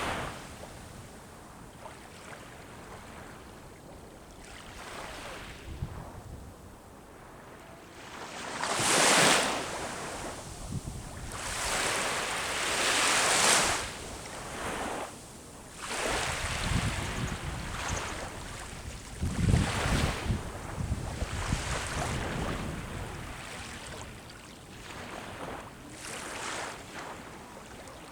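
Sea waves breaking and washing up the shore, swelling and falling back every few seconds. Some low wind rumble on the microphone during the biggest surges in the middle.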